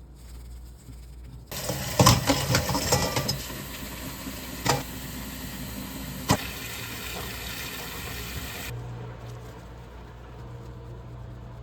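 Kitchen tap running into a sink, with metal utensils clinking against each other or the sink several times, a cluster near the start and single clinks later. The water shuts off about nine seconds in, leaving a low steady hum.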